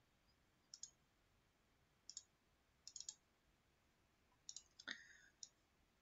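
Faint computer mouse clicks in short groups of single and double clicks, about six times, the loudest a little before the end.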